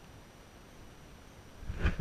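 A faint steady hiss, then a single dull thump near the end.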